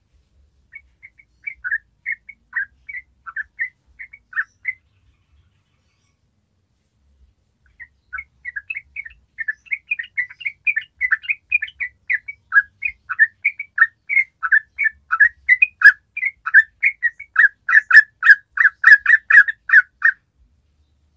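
Yellow-vented bulbul singing: a short phrase of bubbly chirped notes, a pause of about three seconds, then a long rapid run of notes that grows louder and faster before stopping abruptly.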